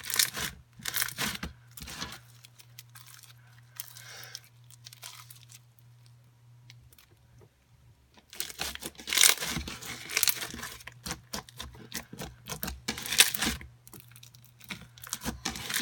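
Sticky clear-base slime with foam pieces being squished and stretched by hand, making bursts of clicking, crackling and popping, with a quieter pause midway.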